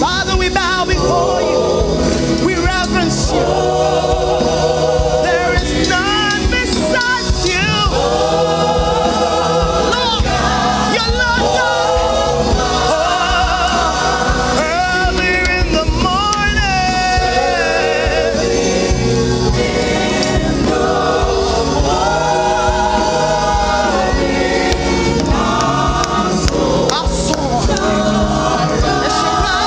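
Gospel choir singing with band accompaniment, sustained sung phrases over a steady low backing.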